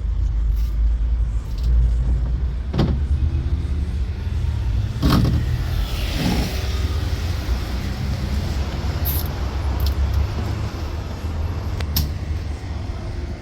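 A car engine idling with a low, steady rumble, with a few sharp clicks and knocks scattered through it.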